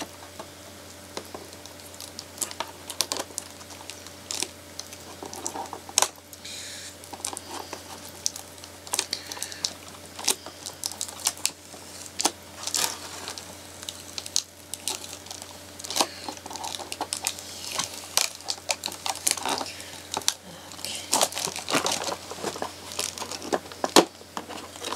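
A doll's plastic and cardboard packaging crinkling and rustling as it is worked open by hand, with bits of tearing and many scattered sharp clicks and snaps. The sharpest snaps come about six seconds in and near the end.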